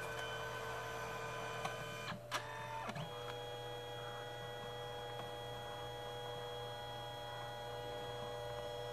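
Canon Selphy CP1200 dye-sublimation photo printer running a print. It gives a steady motor whine as it draws the photo paper back in and feeds it out again between colour passes. A little over two seconds in, the whine breaks off briefly with a click, then carries on at a slightly different pitch.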